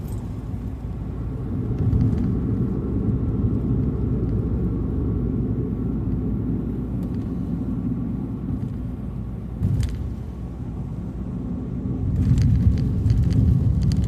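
Car driving along a highway: a steady low rumble of road and engine noise that swells about two seconds in and again near the end, with a few short clicks about ten seconds in and near the end.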